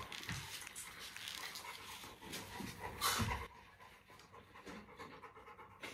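Chocolate Labrador retriever panting softly with its mouth open, with one louder burst of noise about three seconds in.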